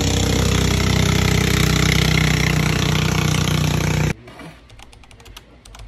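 A small engine running steadily and loudly, cut off abruptly about four seconds in. Faint scattered clicks follow.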